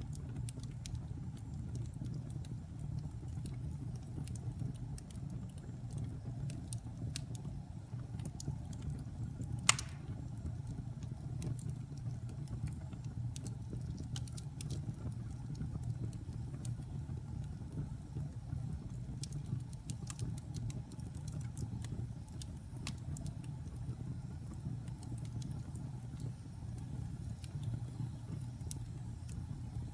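Wood fire burning in a fireplace: a steady low rumble with scattered crackles, and one loud pop about ten seconds in.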